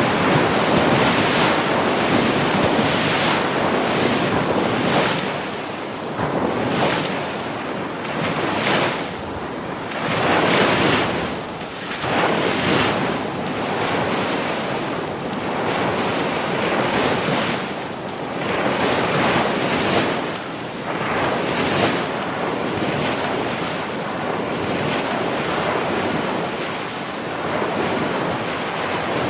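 Ocean surf: waves breaking and washing in as a continuous rush that swells and eases every few seconds.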